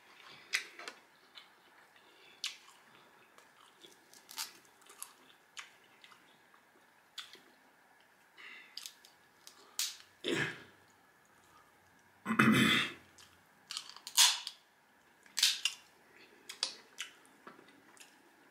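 Crab shells being cracked and pulled apart by hand close to the microphone: irregular sharp cracks and snaps, the loudest a little past the middle.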